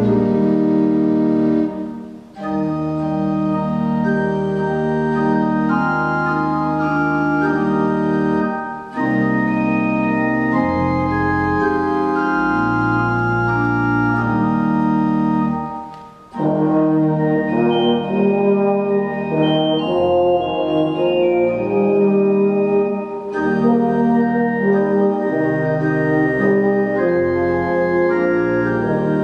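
Organ and a low valved brass instrument playing slow, sustained chords together. The phrases break off briefly about two seconds in and again about sixteen seconds in.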